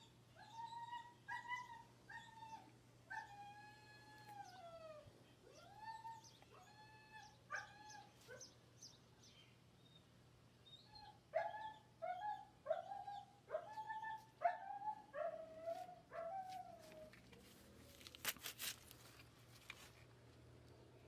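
An animal's short, high, arching cries, repeated about two a second in two runs with a pause of a few seconds between them. A few sharp clicks follow near the end.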